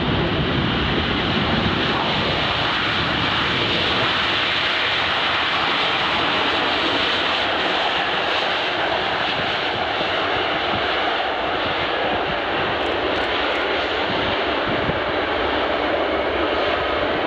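Boeing 747-400F freighter's four jet engines: a loud, steady rush of jet noise as the aircraft lands and rolls out. The deep rumble thins after about ten seconds.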